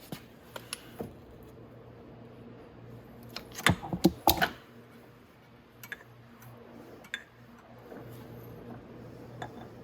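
Scattered small metal clicks and a short clatter of metal parts being handled about three and a half seconds in, over a steady low hum.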